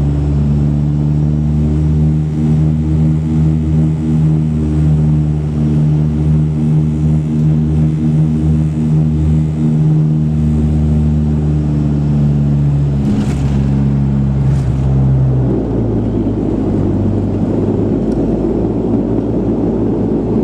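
Turboprop engines and propellers of a de Havilland Canada Dash 8-100, heard from inside the cabin: a loud, steady, multi-toned propeller drone. Two knocks come in the second half, and about three-quarters of the way through the drone gives way to a broader rushing noise as the engine sound changes.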